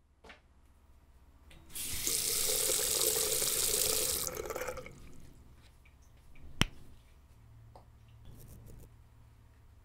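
Bathroom sink tap running for about three seconds, then turned off. About two seconds later there is one sharp click, followed by faint small handling sounds at the basin.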